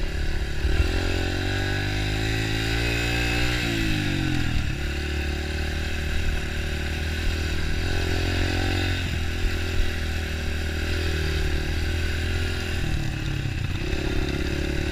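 Dirt bike engine running under throttle on a trail ride. Its pitch climbs for a couple of seconds, then drops sharply about four seconds in as the throttle is eased off. It picks up again twice later on.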